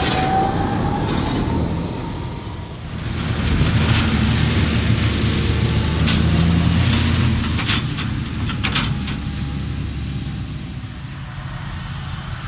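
Large farm tractors pulling Tebbe silage trailers drive past with their diesel engines running steadily. The engine sound swells again about three seconds in and fades toward the end, with a few sharp knocks about eight seconds in.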